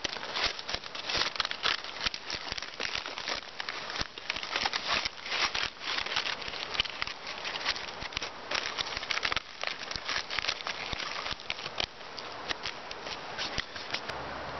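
Aluminium foil crinkling and crackling in quick, irregular rustles as it is folded and pressed around a fish to wrap it for the fire. It cuts off abruptly near the end.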